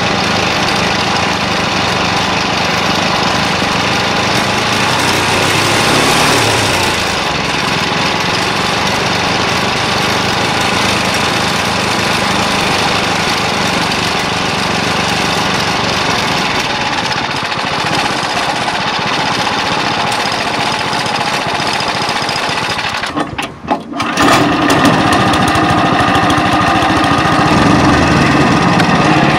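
Pasquali SB30 two-wheel tractor's engine running steadily while the tractor is driven towing a trailer. The sound breaks off briefly about 23 seconds in, then the engine carries on running.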